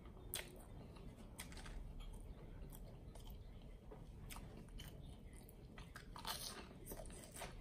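A person chewing food with scattered crisp clicks. About six seconds in comes a louder bite into a fried onion ring, followed by more chewing.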